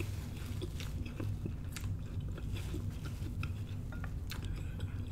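A woman chewing a mouthful of spinach and watermelon salad close to the microphone, with her mouth closed. Scattered short crackles and wet clicks come from the leaves and fruit being chewed.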